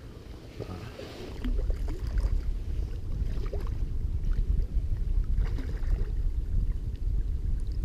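Wind gusting over the microphone, heard as a low, uneven rumble that swells about a second in and keeps rising and falling, with a few faint clicks.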